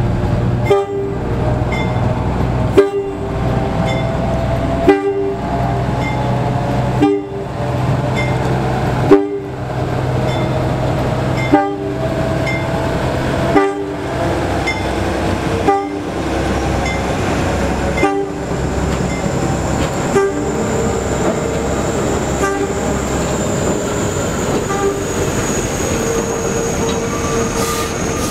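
NYC Subway diesel work locomotive rolling slowly past and towing new Kawasaki R211A subway cars, with a sharp clank of wheels over the rail joints about every two seconds. The diesel's low drone fades about halfway through, and then a steady high-pitched wheel squeal comes from the passing cars.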